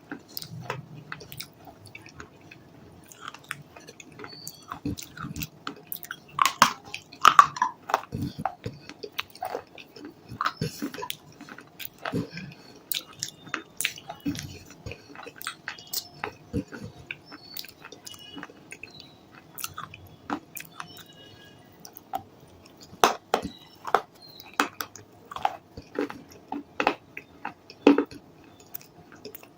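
A person biting and chewing crunchy baked clay, such as pieces of a kulhad clay cup and clay diyas, close to the microphone: a run of irregular sharp crunches and cracks, with the loudest bites about six to eight seconds in and again near the end.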